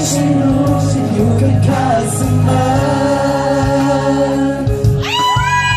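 Male voices singing a Thai pop song live into microphones over accompanying music. High-pitched shrieks join about five seconds in.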